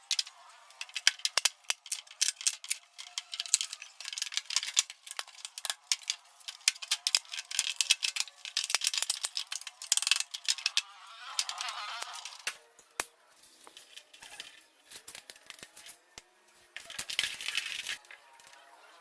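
Irregular rapid clicking and rattling, dense for the first dozen seconds and sparser after.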